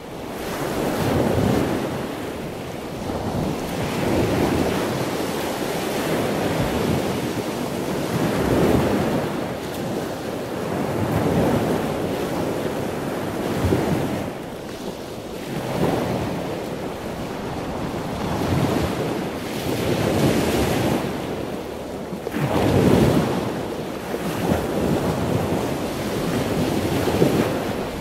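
Sea waves washing in on a shore with a windy rush, swelling and falling every few seconds.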